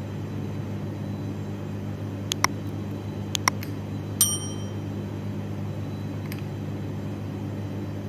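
Metal spoon clinking against a ceramic bowl: a few light clicks, then one clear ringing clink about four seconds in, over a steady low hum.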